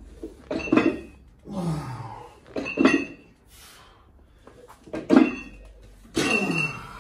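Lying leg curl repetitions on a home multi-gym machine: the machine creaks and the weight plates clink with each rep, about five times with a longer pause in the middle, along with forceful breathing.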